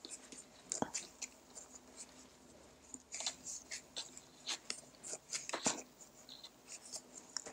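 Wooden knitting needles clicking and yarn rustling as stitches are worked along a row: a scatter of faint, soft ticks.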